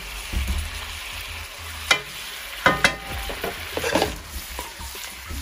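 Chicken pieces sizzling in a wok as a wooden spatula stirs them, with several sharp knocks and scrapes of the spatula against the pan.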